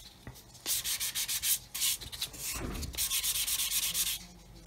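Polishing stick rubbed quickly back and forth over a black-primed plastic model rocket body, a dry, hissy scrubbing in runs of rapid strokes with short pauses between them. The seam is being polished back to see whether it has reappeared after settling.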